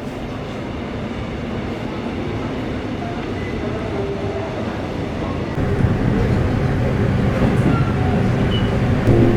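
Steady rumble of a moving vehicle with faint rattling, growing louder about five and a half seconds in.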